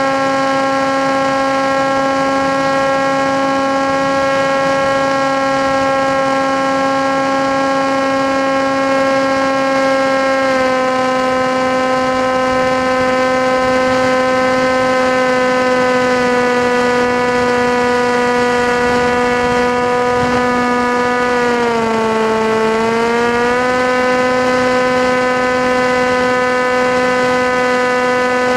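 Motor and propeller of an FPV model aircraft heard from on board, a steady loud whine. The pitch steps down slightly twice and dips briefly with the throttle about three quarters of the way through.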